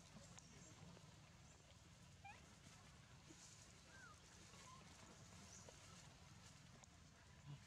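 Near silence: faint outdoor background with a few brief, faint chirps about two and four seconds in.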